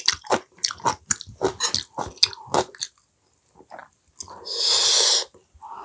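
Close-miked wet chewing and lip-smacking, a quick run of smacks and clicks that pauses about halfway. This is followed by a longer hissing rush of noise about four and a half seconds in.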